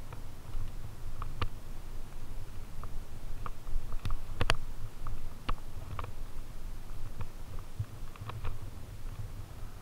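Fat bike rolling over a trail covered in dry fallen leaves: a steady low rumble with scattered clicks and rattles, the sharpest about four and a half seconds in.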